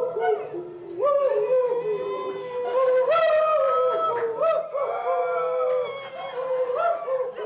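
A dog howling along with a harmonica played into a microphone: long, wavering howls over the harmonica's held notes.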